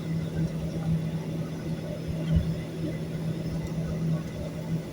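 Airliner cabin noise: the engines giving a steady low hum over a rumble.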